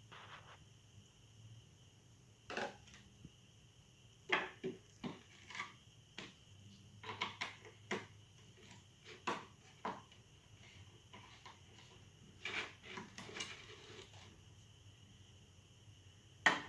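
Scattered light clicks and knocks of small plastic science-kit test tubes and lids being handled and set down, some in quick clusters.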